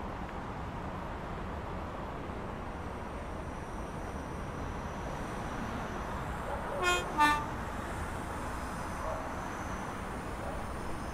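Train horn giving two short blasts about seven seconds in, a higher note then a lower one, over the steady rumble of a train running.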